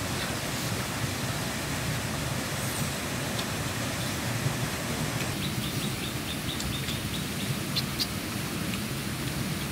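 Steady rushing noise of flowing river water. About halfway through, a quick run of high chirps, roughly five a second, is followed by a couple of sharp clicks.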